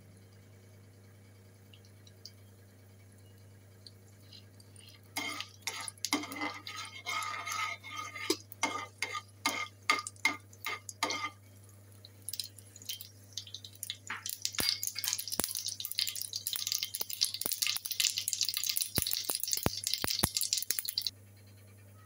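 Mustard seeds heating in oil in a metal frying pan. After a quiet start a metal ladle stirs and clinks against the pan for several seconds, then the seeds crackle and pop densely, a sign that the oil is hot enough for the tadka, until the sound cuts off sharply near the end.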